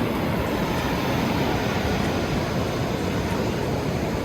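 Loud, steady beach background noise: surf breaking and wind buffeting the microphone.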